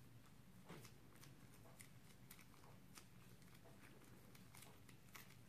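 Faint, irregular sticky clicks and crackles of hands squeezing glitter slime out of a small plastic bag, over a low steady hum.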